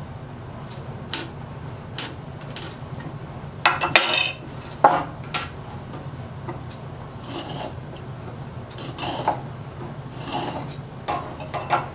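Irregular clicks, knocks and light clinks of a handsaw, pencil and wooden block being picked up, shifted and set down on a wooden workbench, with a few short scraping rubs. The handling is busiest about four seconds in and again near the end.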